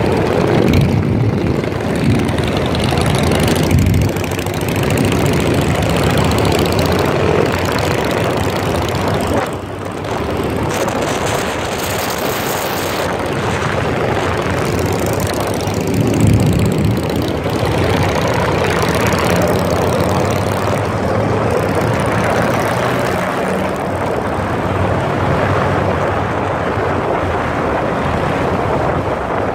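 Motorcycle engines running steadily as a column of bikes rides along, heard from a moving motorcycle, with rushing road and wind noise.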